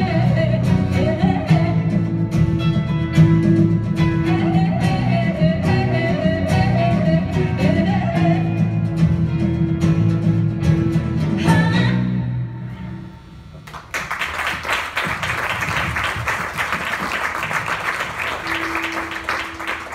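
Live band with electric and acoustic guitars and a woman singing, playing out the end of a song; a final chord rings out and dies away about twelve seconds in. A couple of seconds later the audience breaks into applause.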